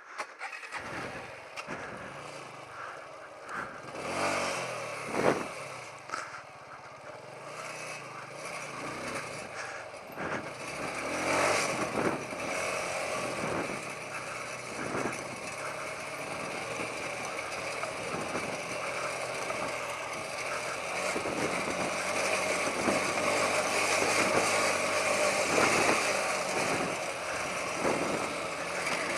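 TVS Apache RTR 180 single-cylinder motorcycle engine running as the bike is ridden up a bumpy dirt trail, with a few sharp knocks from the rough ground. The engine and rushing noise grow gradually louder through the second half.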